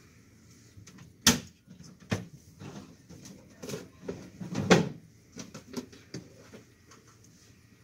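A series of knocks and clatters from a cabinet being opened and a plastic wash basin being taken out and handled. The two loudest knocks come about a second in and near the middle.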